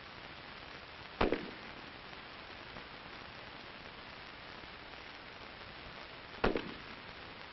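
Two single M16 rifle shots about five seconds apart, each a sharp crack with a short tail, over a steady background hiss.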